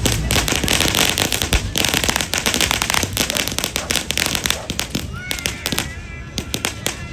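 Fireworks crackling: a dense rapid run of sharp pops and bangs that thins out to scattered pops about five seconds in.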